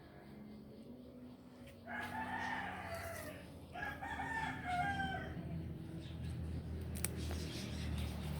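A rooster crowing once, a drawn-out call about two seconds in that breaks briefly midway and falls in pitch at its end.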